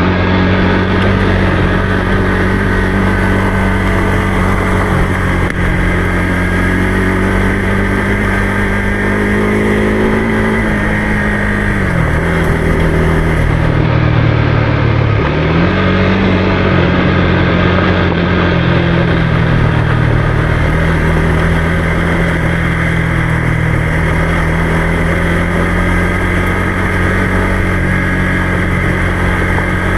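Motorcycle engine running steadily under way, over a constant rushing noise; its pitch drops about twelve seconds in and climbs back a few seconds later, as on a throttle change or gear shift.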